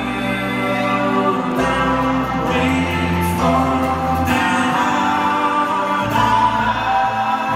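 A folk-rock band playing live in a large arena: singing over acoustic guitars, upright bass and keyboard, with the bass note changing every second or two.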